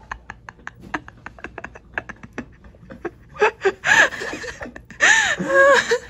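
Domestic cat vocalising: a run of rapid, irregular clicking chatter for about three seconds, then a few short meow-like calls that rise and fall in pitch near the end.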